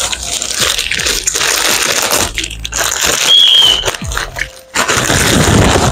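Plastic packaging crinkling and rustling as it is handled and pulled open, with a brief high squeak a little past the middle.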